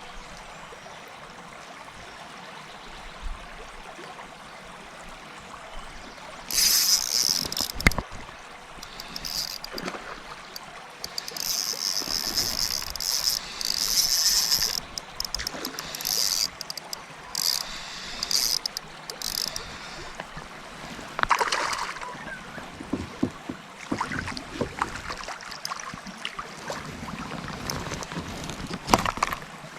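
Water sounds around a kayak on a river: a steady rush of flowing water, then from about six seconds in, irregular loud splashy bursts with a sharp knock about two seconds later and more scattered splashes and knocks after.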